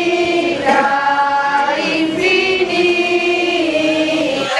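A choir singing a slow melody in long held notes, several voices together.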